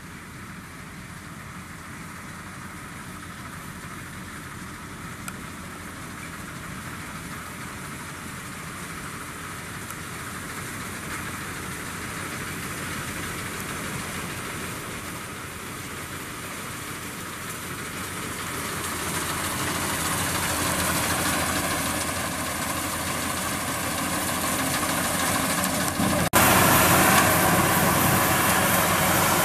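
Maxxi Bimo combine harvester's engine and machinery running steadily, growing gradually louder, then abruptly louder near the end.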